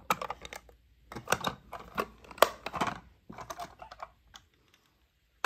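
Irregular clusters of sharp plastic clicks and knocks from a toy container truck's plastic container and trailer being handled and fitted together. They stop about four and a half seconds in.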